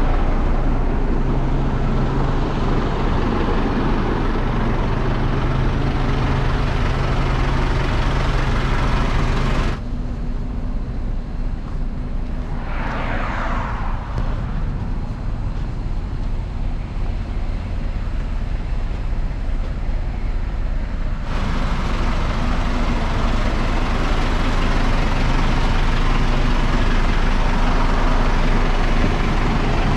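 Truck engine running steadily while driving, with road noise. The sound shifts abruptly about ten seconds in and again about twenty seconds in, and a short hiss swells and fades about halfway through.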